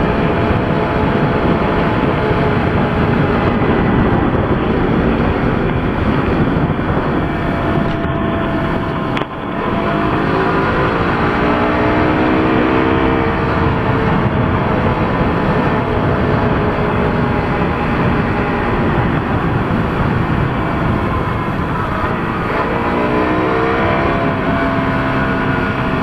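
Motorcycle engine accelerating on a winding road, its pitch climbing twice as it pulls through the revs, under a heavy rush of wind noise. There is a brief drop in sound about nine seconds in.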